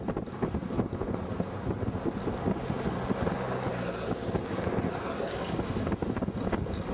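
Wind buffeting the microphone of a camera held in a moving vehicle, over the vehicle's steady low rumble.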